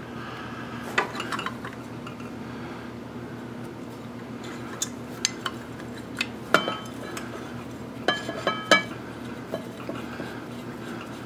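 Small steel motorcycle brake parts and hand tools clinking and knocking together in scattered bursts, a few strikes ringing briefly, the loudest near the end, over a steady low hum.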